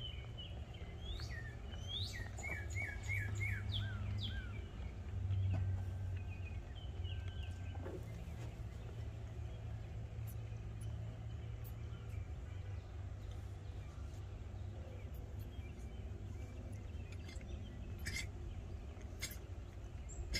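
Songbird chirping outdoors: quick runs of short falling chirps in the first few seconds and a few more soon after, over a faint, steady low background hum. A few faint clicks near the end.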